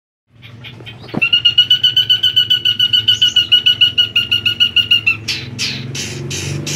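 Long-tailed shrike (cendet) calling: a rapid string of even notes at one pitch, about nine a second for nearly four seconds, then harsh, scratchy chattering calls near the end. A low steady hum runs underneath.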